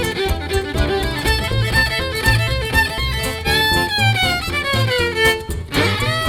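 Live band playing an instrumental number, with a fiddle-led melody over bass. Several notes slide down in pitch a few seconds in.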